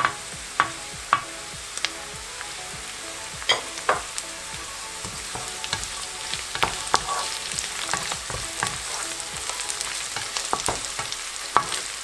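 Sliced onions and green chilli sizzling in hot oil in a nonstick pan, stirred with a wooden spatula that knocks and scrapes against the pan many times over the steady hiss. The knocking comes more often in the second half.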